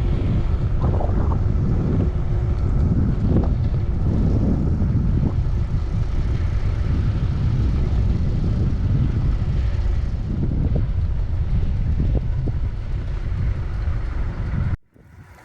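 Wind buffeting the microphone during an e-bike ride, a steady loud low rumble. It cuts off suddenly near the end.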